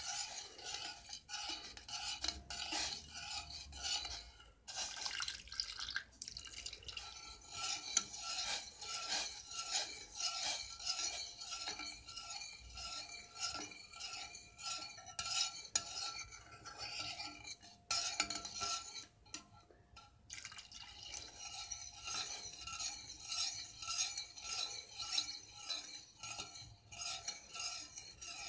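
A metal spoon stirring tea and milk in a pot, scraping and clinking against the pot's sides over and over, with a brief lull about two-thirds of the way through.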